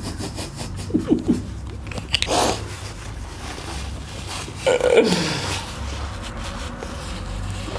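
Close-up chewing and mouth sounds of a person eating crunchy bitter gourd, with a few short murmured vocal sounds and a falling hum about five seconds in.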